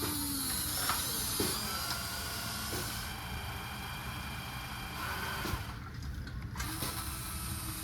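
Small electric motors and gearboxes of a Huina radio-controlled toy construction machine whining, the pitch gliding up and down as the motors speed up and slow, with a few light clicks.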